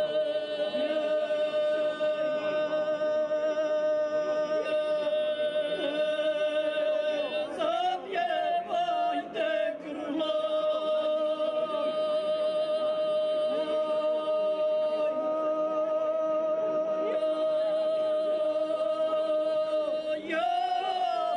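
Two women singing unaccompanied in the Serbian izvika style of traditional singing, holding long, loud sustained notes with a slight waver. About eight seconds in the voices move through a short run of shifting pitches, then settle into another long held note, which slides upward near the end.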